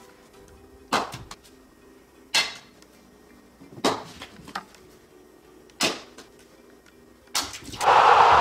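Sharp knocks, about one every second and a half, as small toys are thrown down carpeted stairs and hit the steps and floor. Near the end a large arena crowd starts cheering loudly.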